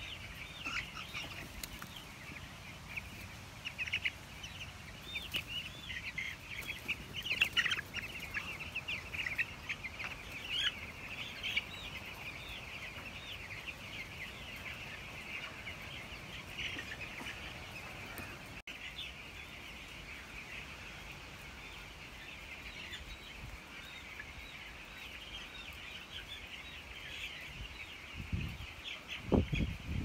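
A large flock of young broiler chicks peeping: a dense, continuous chorus of short, high chirps.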